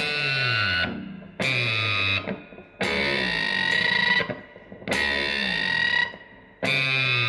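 Electric guitar through an all-transistor octave fuzz pedal, playing five bent double-stops high on the neck. As each bend pushes the pitch up, a low, thuddy tone slides down against it: a strange undertone hidden in the fuzz circuit.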